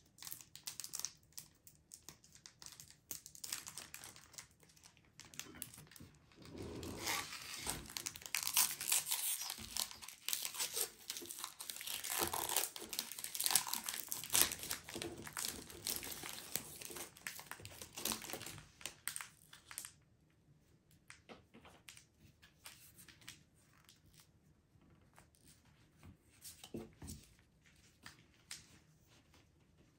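Foil wrapper of a Pokémon card booster pack being torn open and crinkled, a crackling rustle loudest in the middle. About two-thirds of the way in it drops to faint ticks and rustles of the cards being handled.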